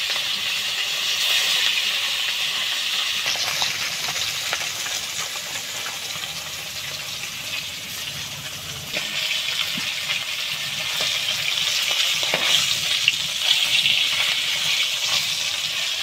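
Pieces of katla fish sizzling as they fry in hot oil in an aluminium kadai, with scattered pops. The sizzle eases a little about halfway, then grows again.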